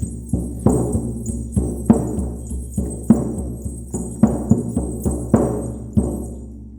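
Hand-held shaman's frame drum beaten with a beater, about two to three strokes a second, each stroke booming and ringing out. The beating stops about six seconds in and the drum rings away.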